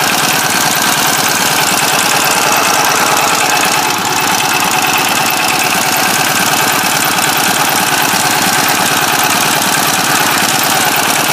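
Chang Jiang M1 motorcycle's flat-twin (boxer) engine running steadily just above idle, with a rapid, even beat.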